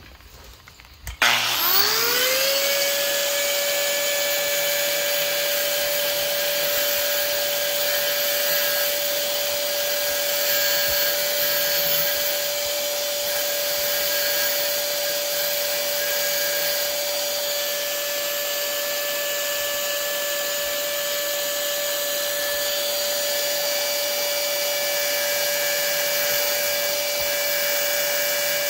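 A small high-speed power grinder switches on about a second in, its whine rising quickly to a steady high pitch, then runs steadily while grinding a groove into a metal screw-in arrow field point.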